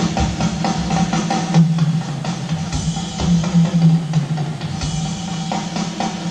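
Hard rock band playing live, with the drum kit hitting a busy, driving pattern over held low notes.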